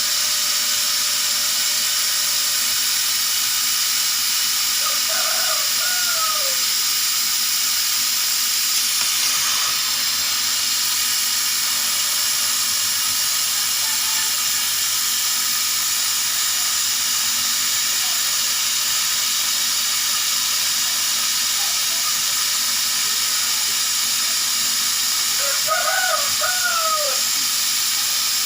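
Steady hiss from a CNC laser cutter at work, cutting 3 mm melamine plywood.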